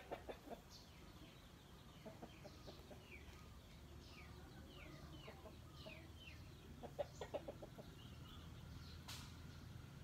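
Chickens clucking faintly in short runs near the start, about two seconds in and about seven seconds in, with small birds chirping in quick falling notes in between. A single sharp click comes about nine seconds in.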